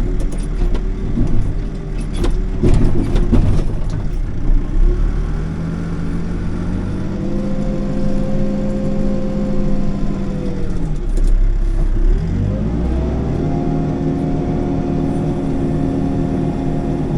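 Backhoe diesel engine working. It revs up about five seconds in and holds, drops back around twelve seconds, then revs up again and holds. There is a cluster of sharp knocks and clanks in the first few seconds.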